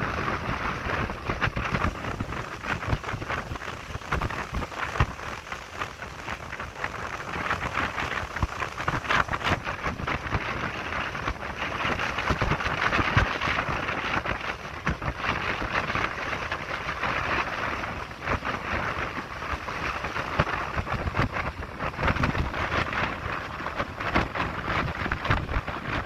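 Strong wind buffeting a smartphone's microphone in uneven gusts, over the steady rushing hiss of choppy, fast-running tidal water.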